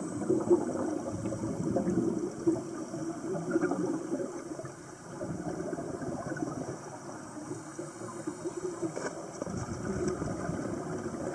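Underwater water noise inside an aquarium tank: a continuous rushing and bubbling that swells and ebbs, easing briefly about halfway through.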